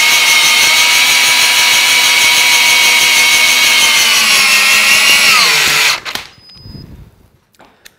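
Metabo SB 18 LTX-3 BL Q I 18 V brushless cordless drill in first gear driving a 10 mm by 300 mm screw into timber without a pilot hole. The motor and gearbox give a loud, steady whine that drops in pitch as the head countersinks into the wood, then stops about six seconds in. A few faint clicks follow.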